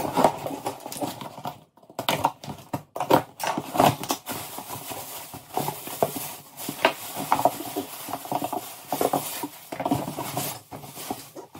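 A cardboard shipping box being opened and crumpled packing material rustled and pulled out of it, with irregular crinkling and scraping, and light knocks of cardboard.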